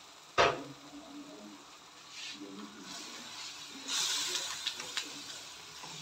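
A silicone spatula stirs a simmering tomato and onion sauce in a metal pot. There is a sharp knock against the pot about half a second in, then wet scraping and stirring through the sauce.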